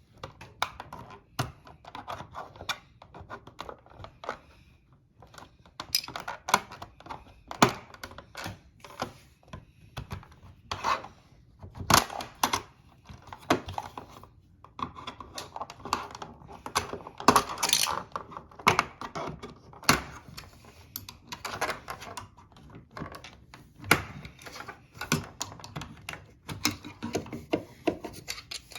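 Irregular clicks, taps and knocks of small hard parts and tools being handled, some sharp and loud, in uneven clusters.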